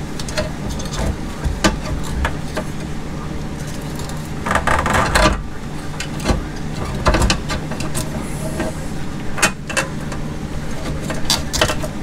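Clicks, knocks and scraping of a C5 Corvette fuel pump module being worked out through the opening in the fuel tank, with a denser rustling clatter about four and a half seconds in. A steady low hum runs underneath.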